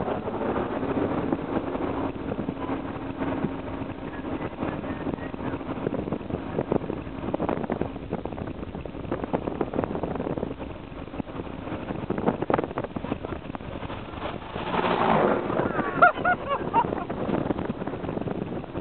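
Steady engine and road noise of a moving military vehicle. An AH-64 Apache attack helicopter flies in low along the road, and its noise swells briefly as it passes close overhead about fifteen seconds in.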